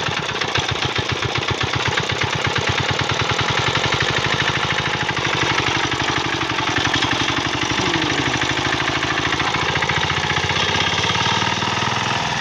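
Single-cylinder diesel engine of a Quick Capung Metal hand tractor running steadily with a rapid, even beat while it pulls a harrow through paddy mud.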